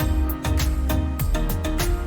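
Background music with a steady beat, bass and pitched instrument notes.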